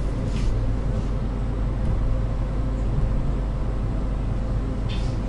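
Cabin noise of an Ivolga (EG2Tv) electric commuter train rolling along a station platform: a steady low motor hum and rumble, with two short hisses, about half a second in and near the end.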